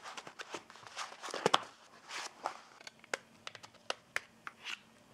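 Hands unpacking a drone accessory from its box: rustling packaging, with a scatter of light clicks and knocks as plastic parts are handled and set on the desk mat.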